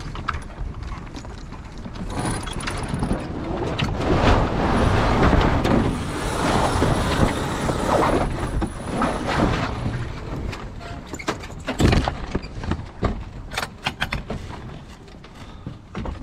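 X-99 racer's sails flapping and rigging rattling as the boat tacks through the wind, loud and close to the mast-mounted camera, swelling over several seconds. A sharp bang about twelve seconds in, then a run of quick clicks.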